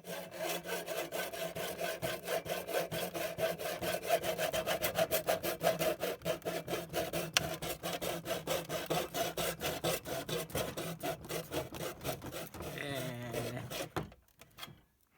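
Hand saw cutting into a plastic router housing in quick, even back-and-forth strokes. About 12.5 seconds in the strokes give way to a short, uneven rubbing, and the sound stops about 14 seconds in.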